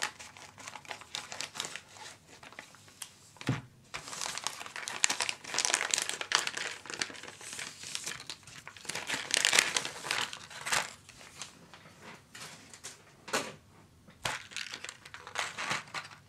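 Thin plastic bag and clear plastic blister trays crinkling and rustling in the hands as the bag is snipped open and the trays pulled out, in irregular bursts, with a soft knock a few seconds in.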